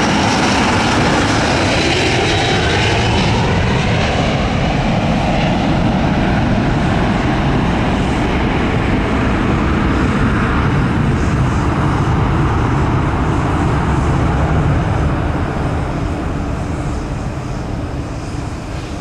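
Twin Rolls-Royce Trent XWB turbofans of an Airbus A350-900 at takeoff thrust as it climbs away: a loud, steady jet roar that slowly fades over the last few seconds.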